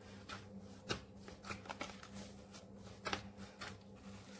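A hand in a plastic glove kneading a mashed potato and breadcrumb dough in a plastic bowl: a series of faint, irregular pats and squishes.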